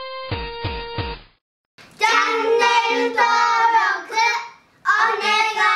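A short music jingle of plucked notes ends about a second in. After a brief gap, a child's high voice sings two short phrases.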